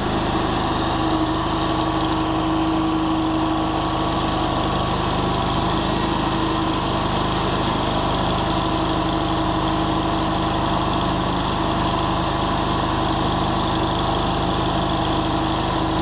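Mini skid steer loader's small engine running at a steady pitch while the loader arm lifts and the bucket tips and lowers.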